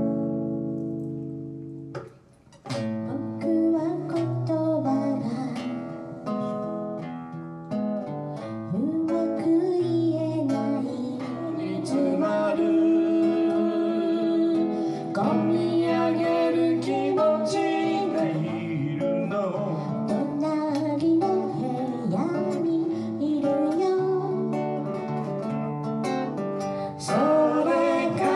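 A man singing a folk song to his own acoustic guitar. A strummed chord rings out and fades, the playing stops briefly about two seconds in, then the guitar and the singing run on together.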